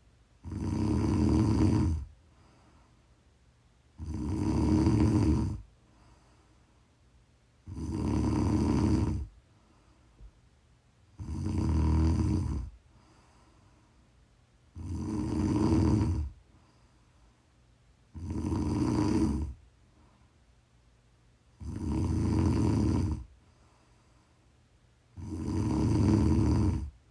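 A woman snoring in her sleep, steady and rhythmic: eight snores on the in-breath, each lasting about a second and a half, coming about every three and a half seconds with quiet breathing between.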